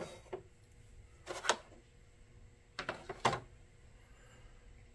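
A few short clicks and clacks of small plastic and metal parts being handled on a work table while a laser engraver's module is taken apart. One at the start, a pair about a second and a half in, and a quick cluster around three seconds in.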